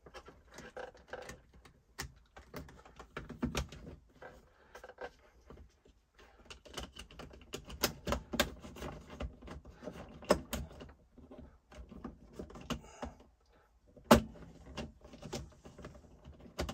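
Irregular plastic clicks, taps and rattles as a black plastic socket backing frame is pushed, turned and fitted over electrical socket modules against a metal panel, with one louder sharp click near the end.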